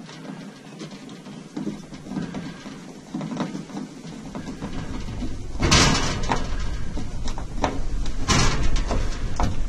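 Fitting screws into a caravan stove unit's metal housing by hand: small clicks and taps, then two louder scraping rustles about six and eight and a half seconds in, over a low rumble.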